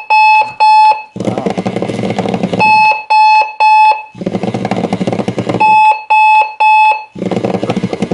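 Visual VibeAlert alarm clock going off: its beeper sounds three quick high beeps, three times, and between the groups the bed shaker buzzes loudly, vibrating hard.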